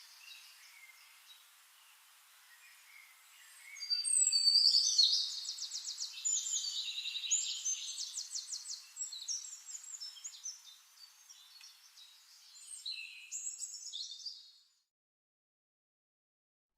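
Songbirds singing: faint chirps at first, then from about four seconds in a louder run of high chirps and fast trills, which cut off abruptly to silence near the end.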